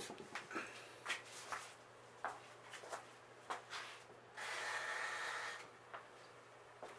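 Handling noises: scattered light clicks and knocks while the grow-closet lights are switched back on, then a steady rushing hiss lasting about a second just past the middle.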